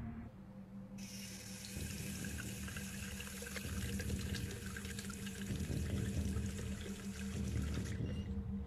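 Tap water running into a sink, splashing as someone washes in it. It starts about a second in and stops near the end, over a steady low hum.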